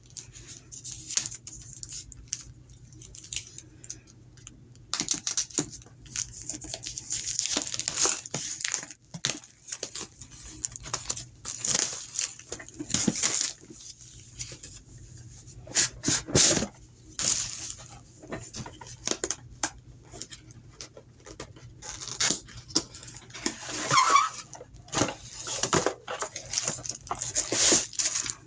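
Plastic packaging being torn open and crinkled as smart-lock parts are unwrapped: irregular rustling and crackling, with louder stretches now and then.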